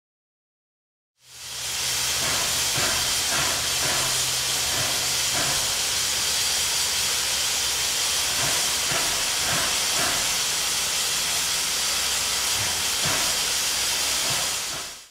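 Steam hissing steadily from Western Maryland 2-8-0 steam locomotive No. 734 standing still, with a few faint knocks. It fades in after about a second of silence and fades out at the end.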